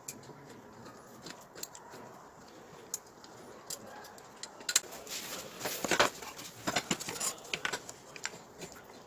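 Hand work on small parts: scattered light clicks and knocks, sparse at first and coming thick and fast in the middle stretch. No power tool is running.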